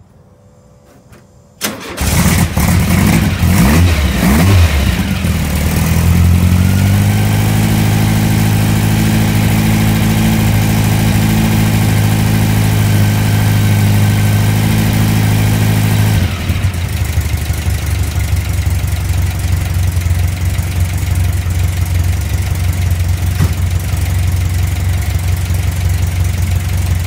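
Freshly built VW air-cooled flat-four, a 2054cc stroker, fires up about two seconds in, revs and is held at a steady fast idle for cam break-in. At about sixteen seconds its note drops abruptly and it runs on at a lower, steady speed.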